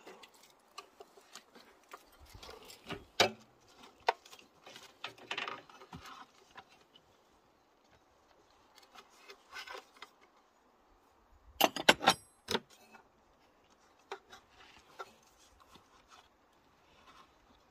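Metal hand tools clinking and scraping against engine parts during a timing belt change, scattered clicks with a loud one about three seconds in and a quick run of loud rattling clicks about twelve seconds in.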